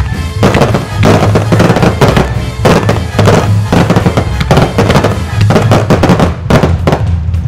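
Fireworks display: ground-fired comets and fountains going off in a dense volley of bangs and crackles, several a second, over loud music.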